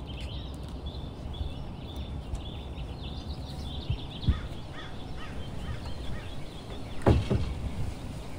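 Birds chirping and calling repeatedly over a steady low background rumble, with a knock about four seconds in and a louder wooden thud near the end as the door is pulled shut.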